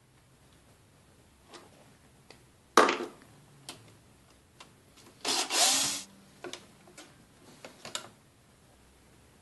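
Cordless drill-driver running in a burst of just under a second, backing out a pickguard screw on a Fender Precision bass. Around it are scattered clicks and knocks from handling the bass's parts, with one sharp knock about three seconds in.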